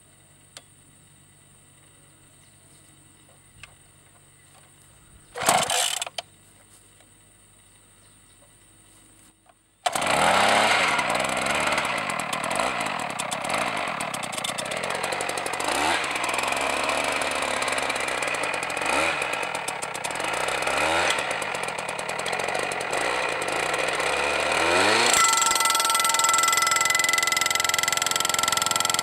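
Two-stroke petrol percussion drilling rig being started: a short burst from the starter pull about five seconds in, then the engine catches about ten seconds in and runs loud with rapid hammering. Near the end steady ringing tones join the hammering as the rig drives the steel sampling gouge into the ground.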